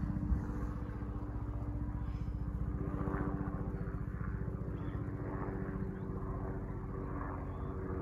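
Bell 206 JetRanger helicopter flying over, its rotor giving a rapid, even beat over a steady engine hum.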